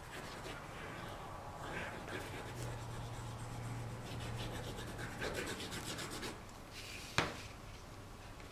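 Cardstock and paper being handled and slid over a self-healing cutting mat, with soft rubbing and scraping. One sharp tap sounds about seven seconds in.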